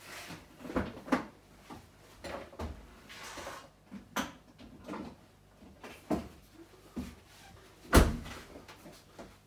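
Scattered knocks and clatters of objects being handled, with one loud thump about eight seconds in.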